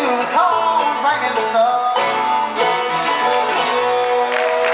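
Live bluegrass band playing, with banjo, mandolin, acoustic guitar, fiddle and bass. A long note is held in the second half, and audience applause starts to rise near the end.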